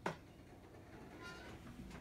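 A single sharp knock right at the start, then a faint brief squeak a little past the middle.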